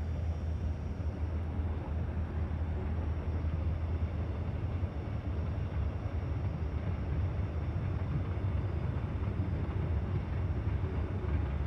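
A CSX train passing, heard as a steady low rumble.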